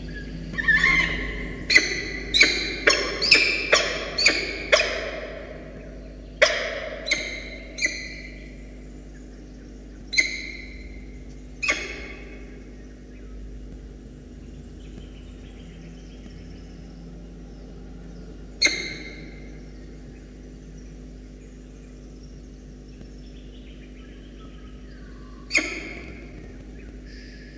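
Male peregrine falcon calling with loud, harsh, rooster-like calls as he comes in to the nest box: a quick run of about eight calls in the first five seconds, then single calls a second or several seconds apart, the last one near the end. Each call rings briefly in the box.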